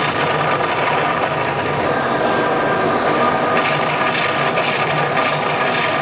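Steady machinery rumble with several held tones and no breaks: ship sound effects played through the onboard sound system of a 1/72-scale HMS Warspite model warship.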